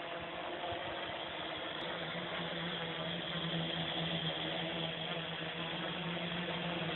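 Armattan CNC-355 aluminium quadcopter's brushless motors and propellers running as it hovers and moves about low over the ground: a steady buzzing whir with a hum that grows stronger about two seconds in.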